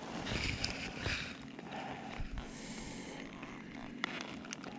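Small electric propeller motor on a float tube running steadily with a low hum, with irregular rustling over it and two sharp clicks near the end.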